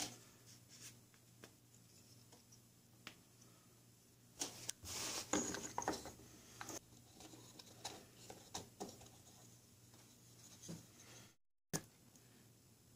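Faint handling sounds of small wooden parts: walnut wheels and dowels being fitted together and set down on a wooden workbench, with scattered light clicks and knocks. A brief louder rustle and clatter comes about four to six seconds in.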